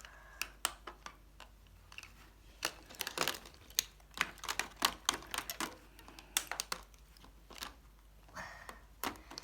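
Small plastic toy parts of a Polly Pocket playset clicking and knocking as they are handled, with irregular clicks while the toy car is pulled off the set and opened.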